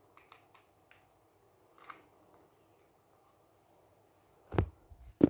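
Light clicks of an electrical plug and wires being handled, then two sharp knocks about four and a half and five seconds in.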